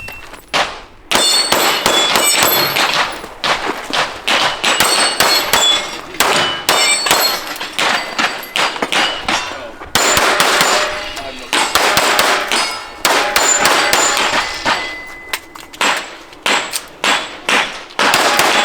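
A string of rapid pistol shots on steel targets, many hits followed by the ringing of the steel plates. The fire breaks off briefly about halfway through, then resumes.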